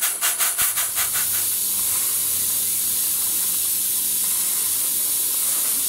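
Model duplex steam boiler feed pump running on steam, its exhaust puffing rapidly at about five beats a second; the beats fade out about a second in, leaving a steady hiss of steam.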